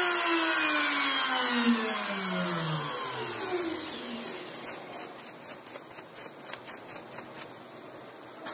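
CNC router spindle winding down after being switched off: its whine falls steadily in pitch and fades over the first few seconds, then gives way to a soft pulsing, about three to four beats a second, as it coasts toward a stop.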